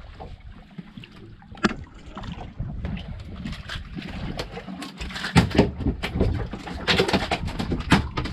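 Boat at sea: a steady low rumble with scattered knocks and splashy clicks, which come thicker and louder in the second half.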